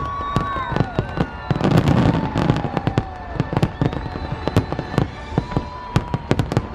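Fireworks exploding in quick succession: many sharp bangs and crackles, heaviest about one and a half to three seconds in, with held tones running beneath them.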